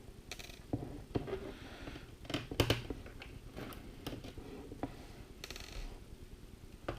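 Screwdriver working on screws in a laptop's plastic case: scattered light clicks and taps, with a short rustle about five and a half seconds in.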